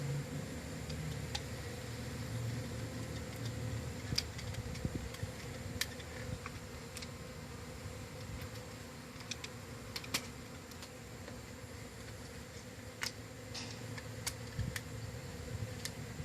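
Honey bees buzzing steadily in a steady low hum, with scattered small clicks and taps.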